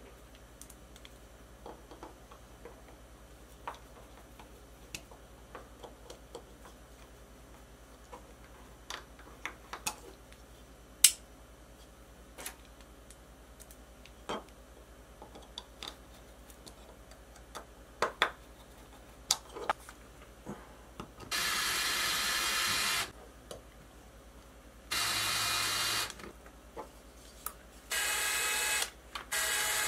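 Cordless drill driving small bolts into a 3D-printed plastic part in four short runs of a second or two each near the end. Before that, light scattered clicks and taps as small plastic parts and bolts are handled.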